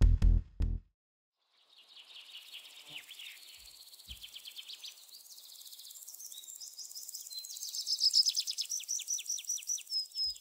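Electronic music beats that stop under a second in. About two seconds in, high bird chirps and trills with insect-like chirping begin and grow louder, ending in a run of repeated high chirps about three a second.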